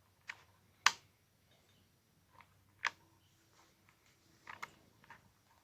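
Scattered sharp clicks and light knocks from handling the rifle and its sling, the loudest about a second in.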